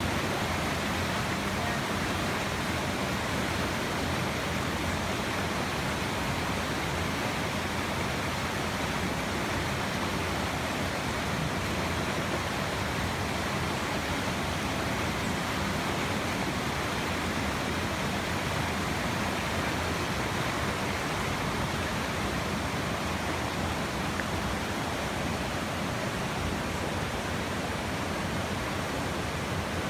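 Small waterfall pouring steadily, a constant full rush of falling water.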